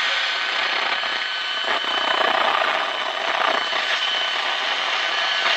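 Repaired 1960s Wards Airline tube radio playing steady static hiss with a thin high whistle running through it, no clear broadcast voice coming through.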